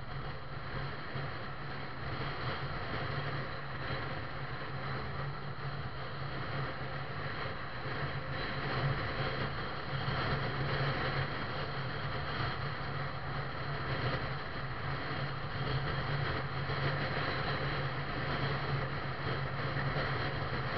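Steady driving noise from a vehicle travelling at road speed: a constant low engine drone under an even rush of road and wind noise.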